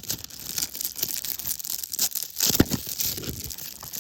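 Plastic packaging on a Blu-ray set crinkling and tearing as it is handled and unwrapped, with a sharper knock about two and a half seconds in.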